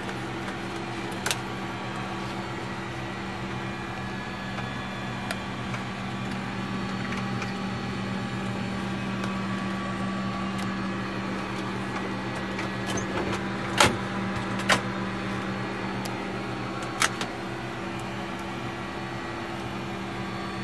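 Steady hum of a parked Lockheed L-188 Electra's running systems heard inside the cockpit, with a handful of sharp clicks, the loudest about two-thirds of the way in.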